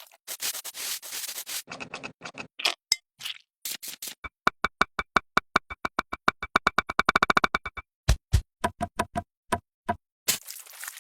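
A fast, even run of sharp clicks, about eight a second for several seconds, between scattered taps and a short stretch of scraping.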